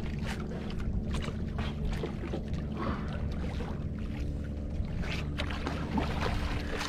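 A fishing boat's engine running steadily, with a few short sharp noises over it.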